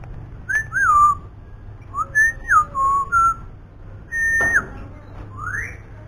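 Caged cucak ranting singing short phrases of clear whistled notes that slide up and down, some held steady and then dropping away, with thin high chirps above them.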